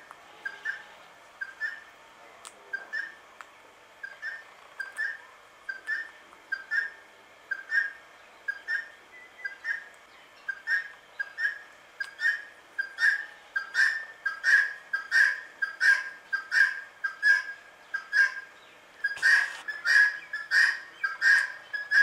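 Indian ringneck parakeet giving a long run of short, repeated chirps, about two a second, growing louder about halfway through.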